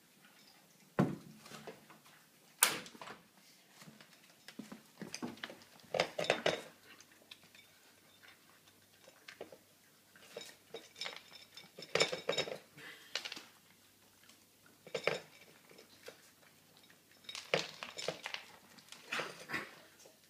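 A dog's food bowl clinking and clattering in irregular bursts as a Pekingese puppy eats greedily, with the sharpest knocks near the start.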